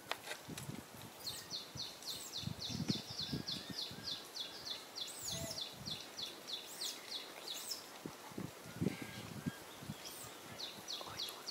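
Baby macaque giving short, high, thin cries from a tree, over insect chirping in even pulses about five a second that stops around the middle and starts again near the end. Occasional low thumps.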